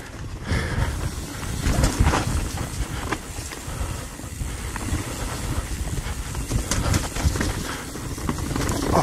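Mountain bike descending a rough dirt trail: a continuous rumble of tires over dirt and roots, with frequent rattles and knocks from the bike.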